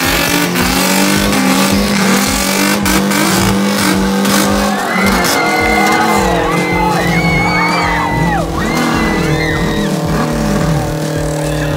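A drag car's engine held at high revs during a burnout, with the rear tyres squealing and spinning against the track from about halfway in.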